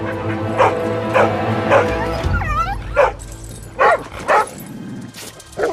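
A dog barking in short, sharp repeated barks, with a high wavering yelp about two seconds in, over background music.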